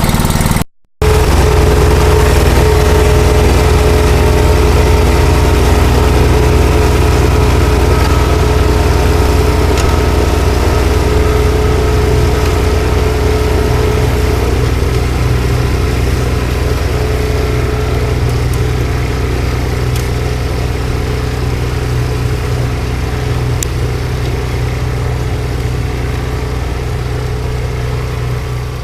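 Small single-cylinder petrol engine of a snowblower, freshly primed, running steadily. A thin steady whine rides over it and stops about halfway through.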